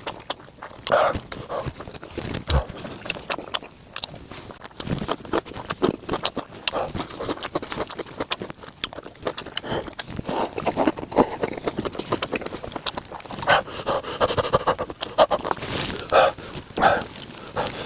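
Close-up eating sounds of Buldak spicy stir-fried noodles: slurping, chewing and lip-smacking, with many short wet clicks and brief breathy puffs.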